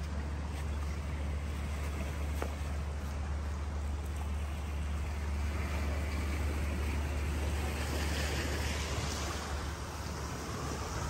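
Sea waves washing against a rocky shore under a steady low rumble of wind on the microphone; the surf wash swells louder in the second half.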